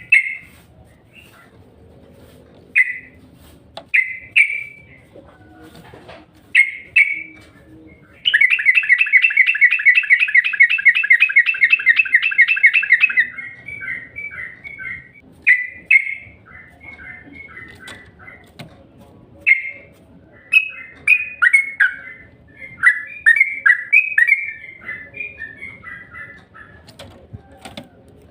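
Yellow-vented bulbul (trucukan) calling: short separate chirps, then a fast continuous trill lasting about five seconds, followed by a run of quick bubbly notes.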